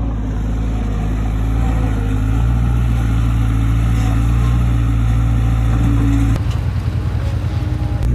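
Engine running steadily under a low, even hum, its sound changing abruptly about six seconds in.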